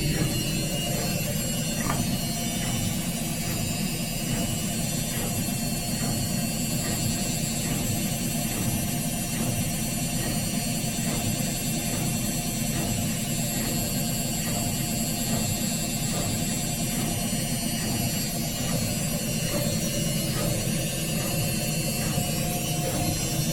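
Indesit IWSC 51051 front-loading washing machine in its final spin, the drum spinning at a steady speed with a constant drone and faint regular ticks.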